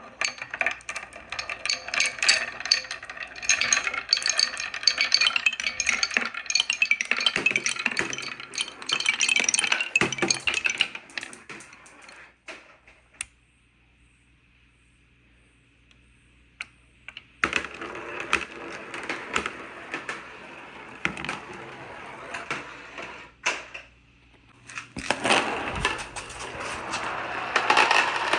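Many marbles clattering and clicking as they roll down a handmade wooden marble run. Dense clatter for about twelve seconds, a pause of about five seconds broken by a few single clicks, then the clatter starts again and is loudest near the end.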